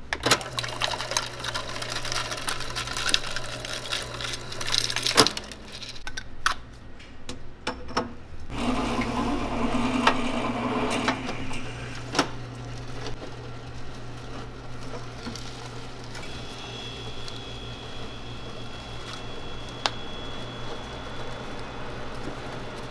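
Countertop can seaming machine running for about four seconds near the middle, its motor and rollers whirring as they seal a lid onto an aluminium can. Before it come a run of clicks and knocks and a hiss, over a steady low hum.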